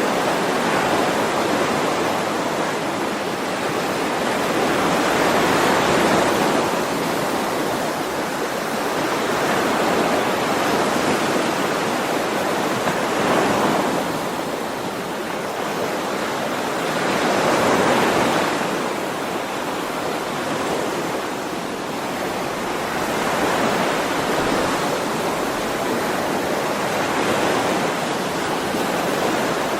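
Ocean waves breaking and washing on a shore, a continuous rush of surf that swells and eases every few seconds.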